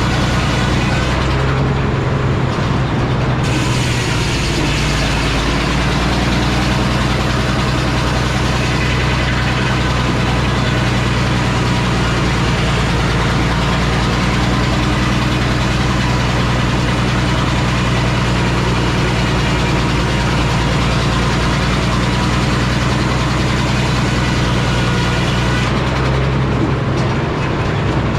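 Antique Frick circular sawmill running steadily on its engine, the blade cutting lengthwise through a big poplar log. The cut starts a few seconds in and ends a couple of seconds before the end, where the saw spins free.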